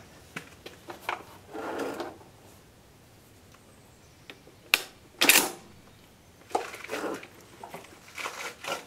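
Steyr M95 straight-pull rifle being handled: light metallic clicks as the rear sight is set, then a few sharper clacks of metal and wood, the loudest a bit past halfway, as the rifle is taken up and shouldered. No shot is fired.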